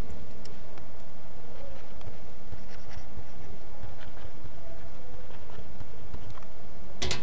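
Faint taps and scratches of a stylus on a pen tablet as short labels are written, over a steady low hum. A single sharp click, the loudest sound, comes near the end.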